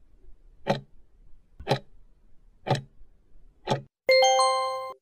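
Countdown-timer sound effect: clock ticks, one a second, four of them, then about four seconds in a bright chime of several ringing tones that fades out, marking time up and the answer reveal.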